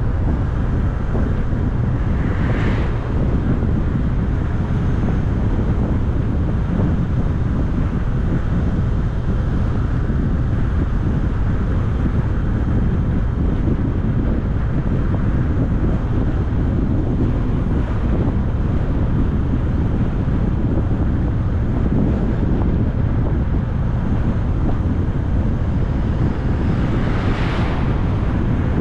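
Steady road and wind noise of a car driving along, with two brief swells of hiss, about two and a half seconds in and again near the end.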